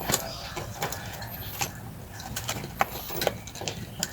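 Irregular light clicks and knocks of hands working loose the plastic parts of a car seatbelt assembly, in the middle of unplugging its electrical connector.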